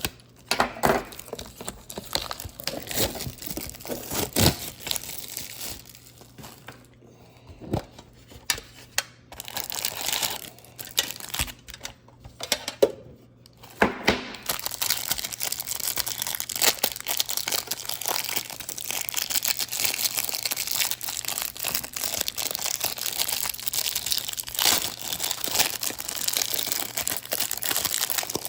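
Wrapper packaging crinkling and tearing as a baseball card tin and its packs are unwrapped: scattered crackles at first, then continuous crinkling from about halfway through.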